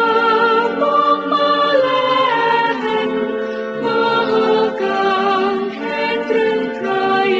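Music: a song with voices singing long held notes that step from pitch to pitch, without percussion.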